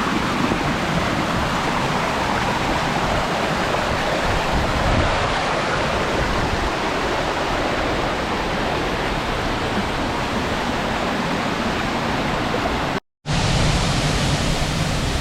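Steady rushing of water from a stream or small waterfall. It cuts out to silence for a moment near the end, then comes back.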